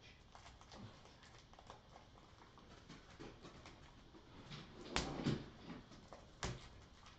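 Quiet room with faint scattered ticks, then two sharp knocks, the first about five seconds in and the second a second and a half later.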